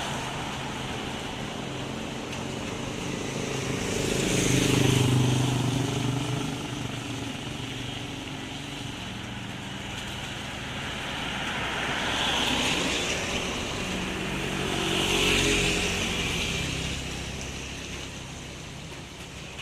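Vehicles passing one at a time on a road in the rain. Each pass swells and fades, the loudest about five seconds in, then two more near twelve and fifteen seconds in, over a steady hiss of rain.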